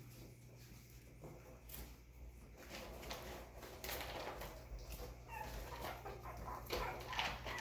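Six-and-a-half-week-old Chihuahua puppies playing: small yips and whimpers mixed with scuffling and the clicking of paws. It grows busier in the second half.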